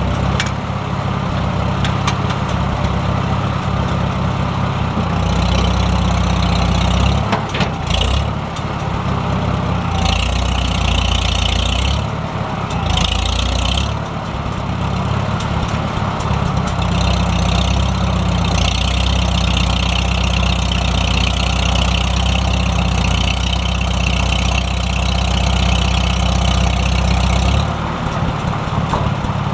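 Heavy truck engine running, its speed and load changing several times, with a higher hiss that comes and goes.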